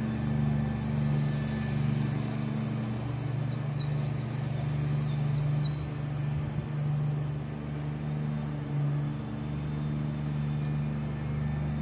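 Steady low hum with small birds chirping a string of short, falling notes in the middle.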